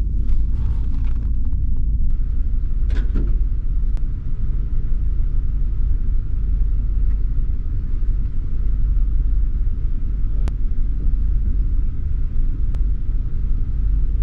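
Old pickup truck's engine idling, a steady low rumble heard from inside the cab, with a few faint clicks.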